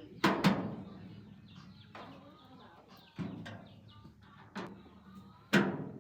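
A run of sharp knocks, each ringing briefly: two close together at the start, then single ones about three and four and a half seconds in, and the loudest near the end. Birds chirp between them.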